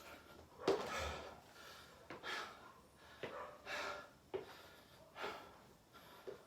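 A person breathing hard and gasping, one heavy breath about every second and a half, each with a short click beside it. He is out of breath from exertion during a burpee workout.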